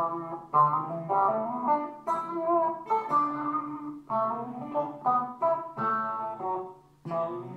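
Heavily distorted electric guitar, driven by a modified Tube Screamer overdrive and processed by a homemade analog convolution engine, heard through a guitar amp. It plays a string of short picked notes and chords, with a brief break near the end.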